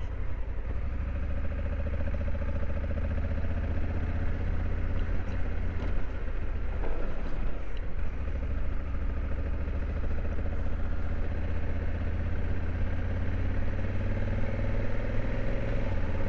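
Honda Africa Twin CRF1100L's parallel-twin engine running steadily at low riding speed, its pitch rising and falling a little with the throttle.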